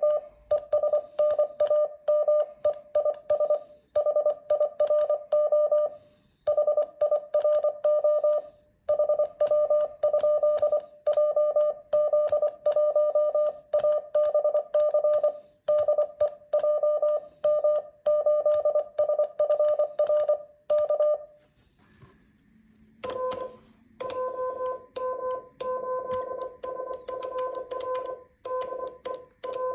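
Morse code keyed on an iambic paddle and heard as a CW sidetone beeping in dots and dashes, sending a contact's exchange of location and call signs. After a short pause a little past two-thirds of the way in, the reply comes in on a lower-pitched tone from a second paddle.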